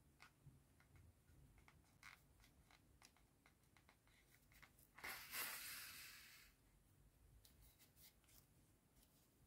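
Black yarn and a tapestry needle being worked through crocheted amigurumi fabric: faint scattered clicks of handling, and about five seconds in a rustling hiss lasting over a second as the yarn is drawn through the stitches.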